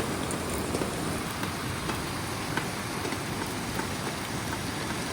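Steady rushing noise of water, with scattered light ticks through it.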